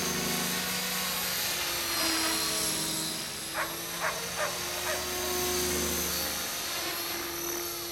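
Align T-Rex 500 electric RC helicopter flying overhead: the steady whine of its motor and rotors, the pitch shifting as it manoeuvres. A few brief sharp sounds come about halfway through.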